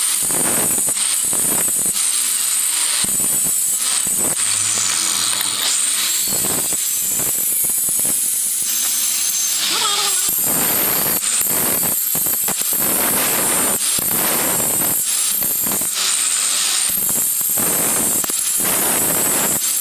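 Handheld electric marble cutter with a diamond blade cutting a curve into a marble slab: a steady whine with grinding noise that dips and swells every second or so as the blade bites into the stone.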